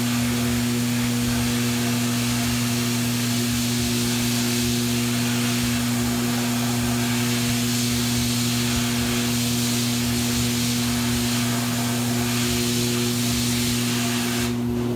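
Sandblast cabinet at work: a loud, steady hiss of abrasive blasting on a cast bronze sculpture, cleaning its surface for patina, over a steady low hum from the cabinet's machinery. The hiss cuts off shortly before the end while the hum continues.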